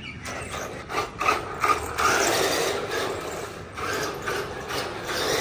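Battery-powered radio-controlled model car driving, its electric motor and gears giving a rasping, ratchety whir. It is loudest about two to three seconds in, eases briefly near four seconds, then picks up again as the throttle is worked.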